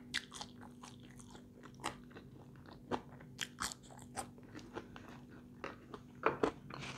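A person biting and chewing french fries close to the microphone: irregular small crunches and mouth clicks.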